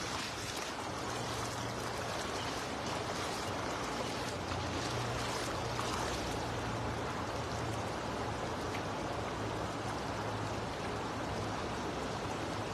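Shallow river water rushing steadily over a rocky bed.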